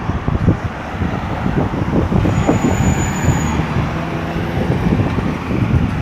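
Steady road traffic circling a busy roundabout, vehicles driving past in a continuous rumble, with a brief thin high whine a little after two seconds in.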